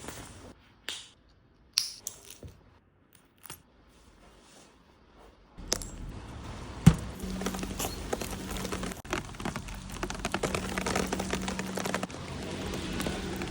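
A few scattered clicks and knocks, then from about five and a half seconds in a dense patter of raindrops. A steady low hum runs under it, and there is one sharp knock just before the seven-second mark.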